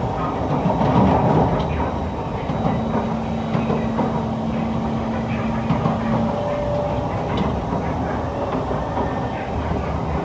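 Interior running noise of a Kawasaki–Nippon Sharyo C151 metro train travelling at speed: a steady rumble of wheels on rail. A steady low hum sets in about two and a half seconds in and drops out a little after six seconds.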